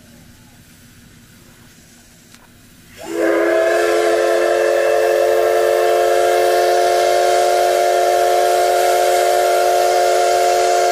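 Steam whistle of the C58 363 steam locomotive sounding one long blast that starts about three seconds in. It holds several notes at once over a strong hiss of steam and stops near the end.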